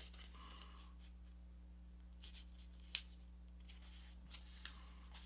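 Faint rustles and crease strokes of an 8.5 by 11 inch paper sheet being folded by hand, with a sharp tick about three seconds in, over a steady low electrical hum.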